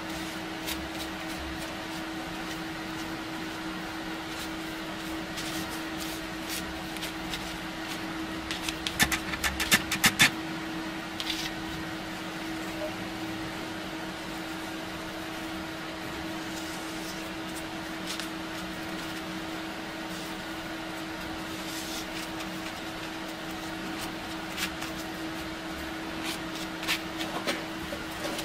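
Light scrapes and sharp clicks of a steel bayonet blade being hand-rubbed with a pad while clamped in a vise, with a quick cluster of louder clicks about nine to ten seconds in and a few more near the end, over a steady low hum.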